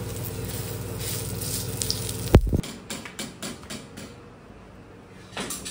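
Vegetable chilla sizzling on a griddle pan over a steady hum. A loud knock comes a little over two seconds in, followed by a few lighter clicks.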